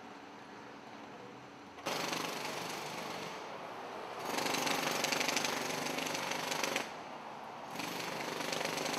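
Pneumatic jackhammer hammering in three bursts of rapid, even blows, each a couple of seconds long, starting and stopping abruptly over steady street noise.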